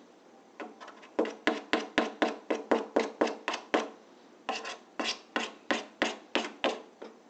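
Quick back-and-forth rubbing strokes, about four a second, working old glue residue off a refrigerator bin's plastic trim. Two runs of strokes with a short pause between them.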